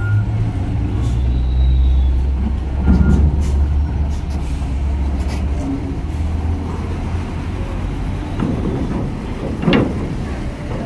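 Heavy diesel cargo trucks driving off a ferry ramp onto steel dock grating. A deep engine rumble swells as one truck pulls past, with clanks as wheels cross the ramp plates and a short air-brake hiss near the end.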